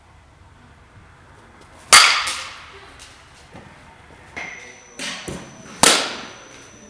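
A bat striking a softball twice, about four seconds apart, each hit a sharp crack with a short ringing tail, with a few softer knocks in between.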